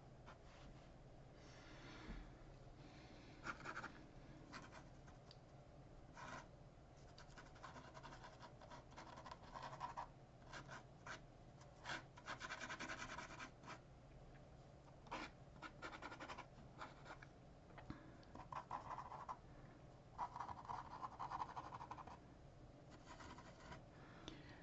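Faint scratching of a pen on paper in short, irregular strokes as lines are inked, over a low steady hum.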